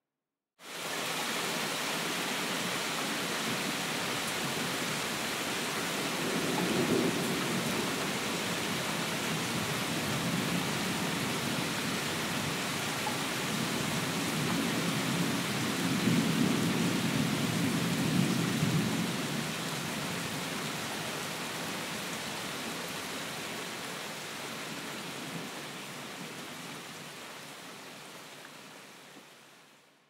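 Steady rain with distant thunder rolling twice, a short roll about seven seconds in and a longer, louder one a few seconds past the middle. The rain fades in just after the start and fades out near the end.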